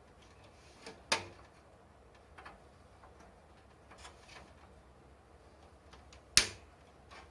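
Parts of a desktop computer tower being handled and pressed into place: a few sharp, isolated clicks and knocks, the loudest about one second and about six seconds in, with fainter taps between.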